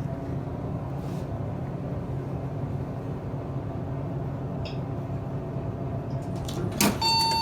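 Elevator car travelling with a steady low hum. Near the end a sharp clunk, then a single bell-like arrival chime that rings on.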